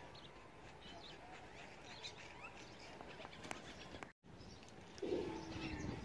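Outdoor bird chorus: many short, scattered chirps from small birds. The sound drops out completely for a moment about four seconds in, and a louder, low, short call follows near the end.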